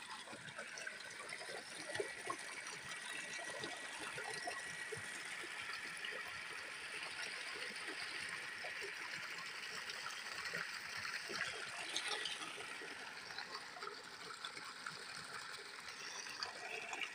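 Water from a running tubewell pouring out of its outlet pipe into an irrigation channel, a steady splashing rush.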